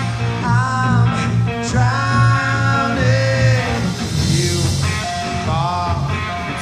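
A rock band playing live: guitar over a steady pulsing bass, with a melodic line that slides up and down in pitch.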